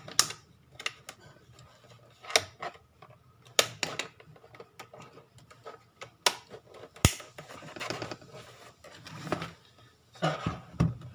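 Sharp plastic clicks and taps as the dummy bezel cover is pressed onto the laptop's universal drive caddy, scattered over several seconds, the sharpest about seven seconds in, with some handling rustle near the end.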